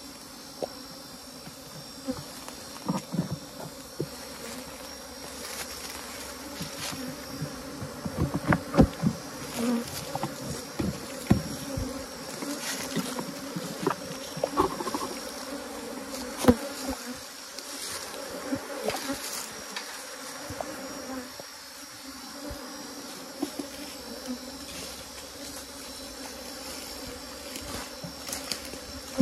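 Honeybees from an opened hive buzzing in a steady hum, a colony stirred up as its hive is worked for honey. Scattered knocks and scrapes from the wooden hive box and tools sound over it, loudest around the middle.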